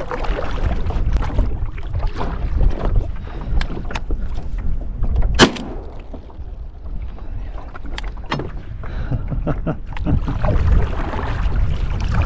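Paddling a small boat through water: paddle splashes and scattered knocks against the hull over a low rumble, with one sharp, ringing knock about five and a half seconds in.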